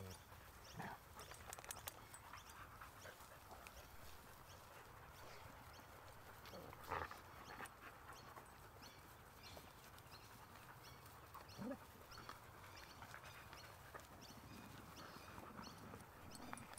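Several dogs moving about close to the microphone, mostly quiet: soft rustles and small clicks, one short sharper sound about seven seconds in, and a brief rising whine about twelve seconds in.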